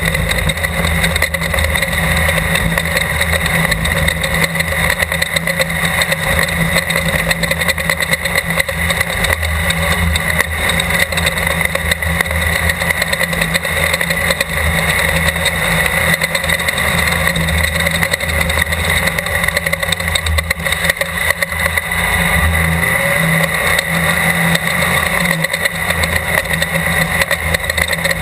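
Class 12 desert race car's engine running under way, loud and fairly steady with little change in pitch.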